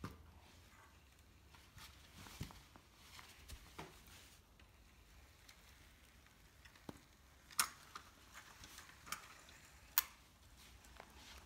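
A child's bicycle with training wheels rolling over an iPhone 5 on carpet: faint scattered clicks and ticks. There are two sharper clicks, the loudest about ten seconds in as the rear tyre presses onto the phone.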